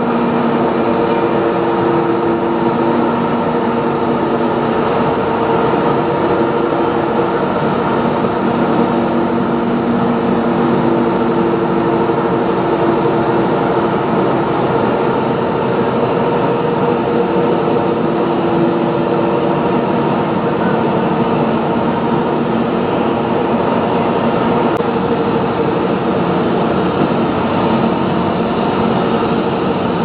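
Machinery of an aluminium rod continuous casting and rolling line running: a constant, loud industrial din with several steady humming tones.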